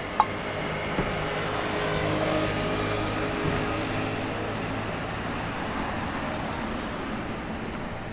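Street traffic noise with a motor vehicle's engine humming steadily for the first few seconds, then fading into an even traffic hum.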